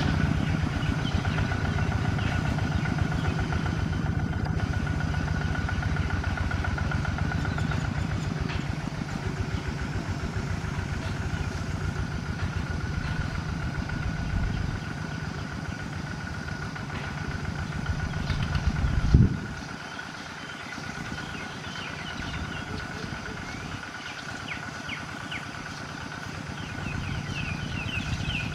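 Kubota ZT140 single-cylinder diesel engine on a cage-wheeled two-wheel walking tractor, chugging steadily under load. About two-thirds of the way through there is a single loud low thump, after which the engine is much quieter. A steady high tone runs throughout, and birds chirp near the end.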